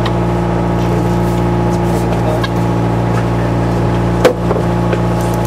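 Party fishing boat's engine running steadily, with one sharp knock about four seconds in.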